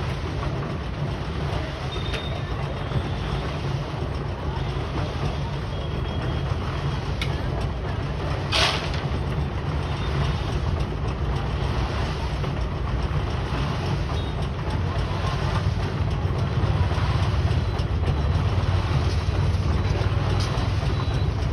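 Heavy machinery running with a steady low engine rumble that grows a little louder in the second half, and one short sharp hiss about eight and a half seconds in. No pile-hammer blows stand out.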